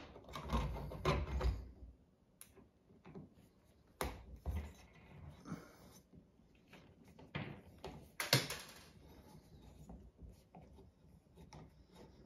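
Hand screwdriver driving the screws that hold a chandelier's canopy to the ceiling, with scattered clicks, scrapes and knocks as the canopy and screws are handled; two sharper clicks stand out about four and eight seconds in.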